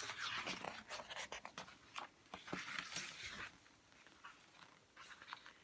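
Pages of a large picture book being turned and handled: faint papery rustling with a few soft clicks for about three and a half seconds, then a few quieter rustles near the end.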